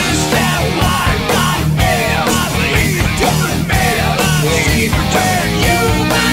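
Background rock music with distorted guitars and a steady driving beat.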